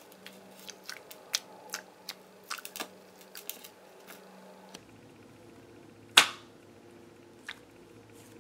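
Short, sharp sticky clicks and pops as fingers squeeze and press a clear jelly squishy toy, its tacky surface sticking and letting go. There are many small clicks at first, then one louder snap about six seconds in and a softer one a little later.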